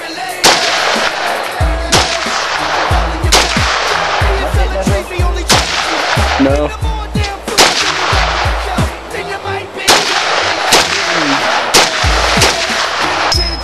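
AK-47 rifle firing single 7.62×39 mm rounds, about one shot every second or two at an uneven pace, each a sharp crack. Music with a heavy bass beat plays underneath.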